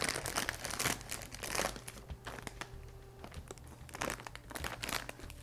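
A crinkly plastic snack bag being pulled open and handled, making a string of sharp crackles, densest in the first two seconds and thinning out after.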